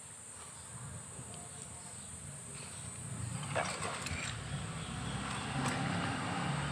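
A steady high insect drone, like crickets, over a low rumble that grows louder partway through, with a few faint clicks of handling.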